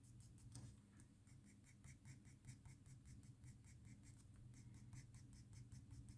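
Faint pencil strokes on paper: a graphite pencil scratching out short, quick strokes, about four or five a second, as fur is drawn in. A low steady hum sits underneath.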